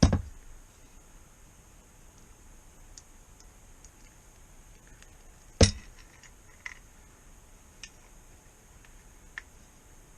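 Sharp knocks and clinks of a small metal plate and parts being handled and pressed into a motorcycle tail tidy: one at the start, the loudest about halfway through, then a few fainter ticks.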